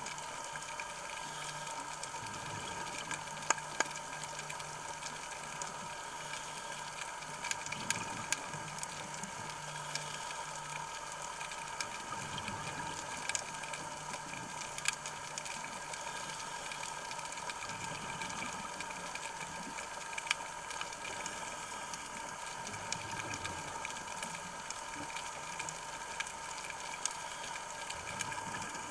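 Underwater ambience picked up by a diver's camera in its housing: a steady hum of several held tones over a hiss, with scattered sharp clicks throughout.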